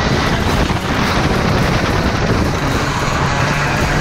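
IAME X30 125 cc two-stroke kart engine running hard on board at racing speed through a corner.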